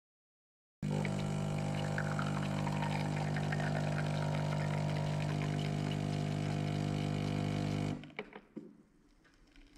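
Automatic espresso machine brewing: its pump hums steadily while espresso streams from the twin spouts into a mug. The pump cuts off about eight seconds in, followed by a few faint ticks.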